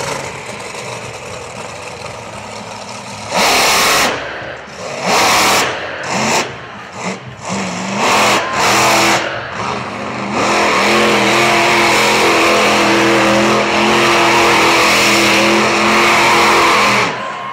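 Monster truck engine revving in several sharp bursts of throttle, then held at high revs at a steady pitch for about seven seconds before dropping off near the end.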